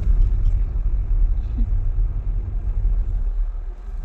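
Car driving, heard inside the cabin: a steady low rumble of road and engine noise.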